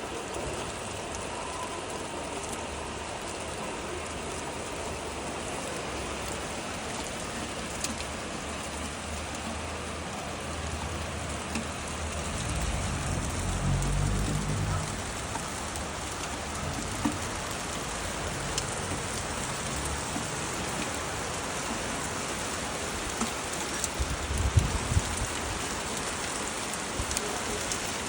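Steady rain falling and pattering on surfaces. A low rumble swells about halfway through and again near the end.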